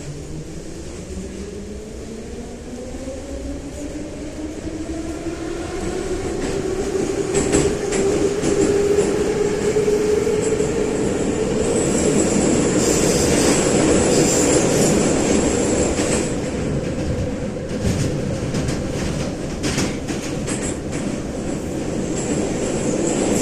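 Metro train of the 81-717/714 type accelerating: the traction motors' whine rises in pitch over the first ten seconds or so and then holds steady, under wheel rumble and rail clicks that grow louder as it gathers speed.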